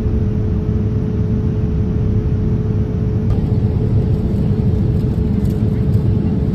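Airliner cabin noise in flight: a steady low rumble with a steady hum running through it.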